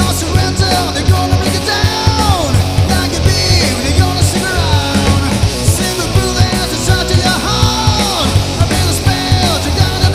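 Rock band playing a punk-rock song live, loud and dense, with a heavy low end and a steady beat. Falling, sliding high notes cut through the mix every couple of seconds.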